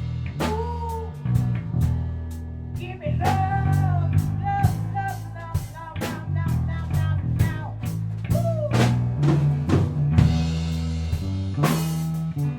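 Band playing an instrumental blues-rock jam: a guitar lead with bent notes over a bass guitar line and a drum kit.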